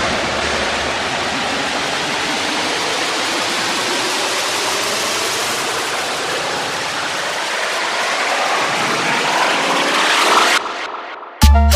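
White-noise riser in a hard-bass DJ mix: a steady rushing hiss with a sweep that rises in pitch over its last few seconds, then cuts off suddenly. Just before the end a heavy, pulsing bass beat drops in.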